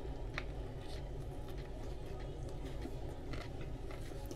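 A person biting into and chewing a sub sandwich close to the microphone: soft, scattered mouth clicks and smacks over a steady low hum.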